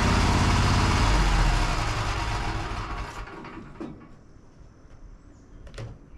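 Wood-Mizer LT35 bandsaw mill running, engine and band blade, then winding down and falling quiet about two to three seconds in. Two brief knocks follow, one around four seconds in and one near the end.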